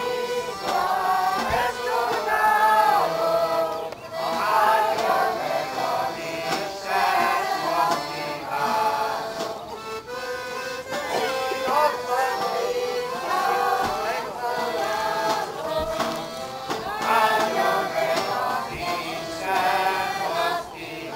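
A group of people singing a Hungarian folk song in phrases, accompanied by an accordion.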